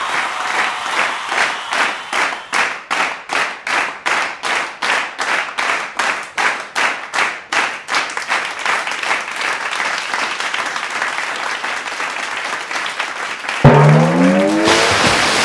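Audience clapping in rhythm, about two and a half claps a second, which fades into a steady rush of falling water. Near the end there is a sudden loud thump and a short pitched cry, then a loud rush of noise as the northern sea lion dives from the crag into the pool.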